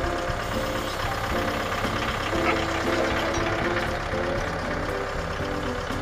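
Mahindra tractor's diesel engine running steadily as its front loader eases a large log down onto the sawmill bed.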